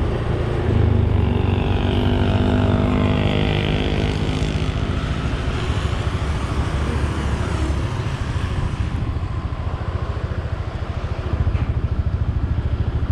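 Road vehicle driving: a steady low engine rumble with road noise, a louder engine note in the first few seconds that then settles back.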